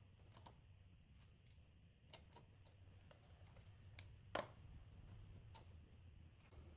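Faint, light clicks of thin, crisp almond cookie wafers being set down on one another inside a clear plastic jar, with one louder click about four and a half seconds in, over a low room hum.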